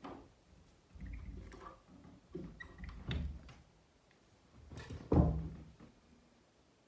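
A few dull thumps and knocks in a small room, the loudest a little after five seconds in.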